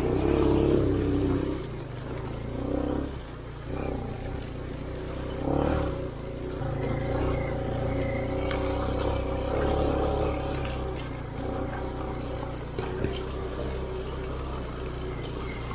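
Vehicle engine running steadily, with louder surges in revs near the start and again about five and a half seconds in.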